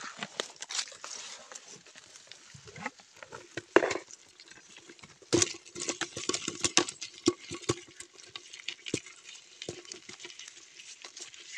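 Rock crabs and small minnow-like fish being shaken out of a mesh fish trap into a plastic bucket: an irregular clatter of small knocks and wet patter against the plastic, busiest about halfway through, with a couple of louder knocks.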